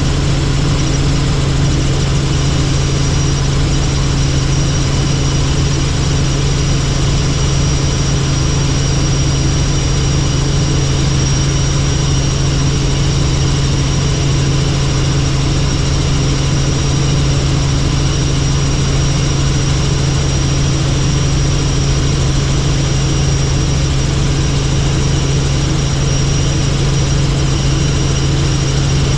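Helicopter in steady flight: a constant, unchanging drone of engine and rotors with a low hum and a thin, steady high whine above it.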